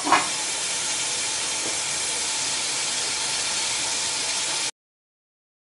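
Mutton and tomato masala sizzling steadily under the lid of an aluminium pot, with a brief clink of the aluminium lid at the very start. The sound cuts off abruptly near the end.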